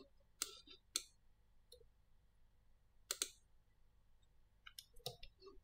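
Faint, scattered clicks of a computer mouse and keyboard keys: single clicks about half a second and a second in, a quick pair about three seconds in, and a small cluster near the end.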